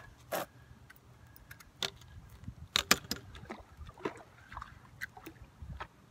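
Scattered sharp clicks and knocks from a fishing rod, reel and landing-net pole being handled while playing a hooked fish, the loudest pair about three seconds in.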